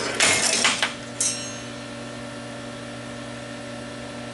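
Metal parts and locking pliers clattering on a steel welding table: about a second of rattling and scraping at the start, then one sharp ringing clink a little later. A steady hum runs underneath.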